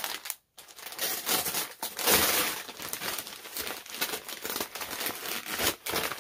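Gift wrapping paper being torn and crumpled as a package is unwrapped by hand: irregular crinkling and rustling, loudest about two seconds in.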